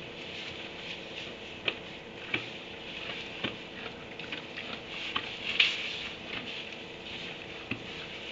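Donkeys moving and nosing about in wood-shavings bedding: rustling and crunching with scattered soft knocks, the sharpest a little past the middle, over a faint steady hum.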